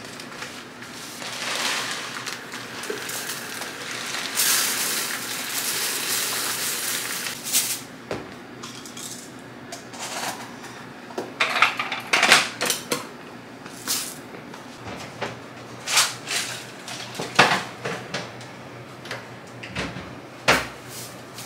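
Rice poured into a kitchen storage container, a steady grainy hiss for about seven seconds. After that come scattered clinks and knocks of jars, lids and dishes being handled.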